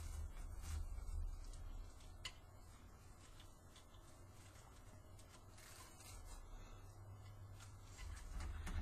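Faint rustling and crinkling of stiff ribbon being handled and tied by hand, with scattered light ticks.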